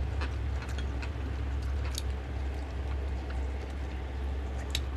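Close-up eating sounds: chewing, mouth smacks and a few sharp clicks of fingers picking at food, over a steady low hum.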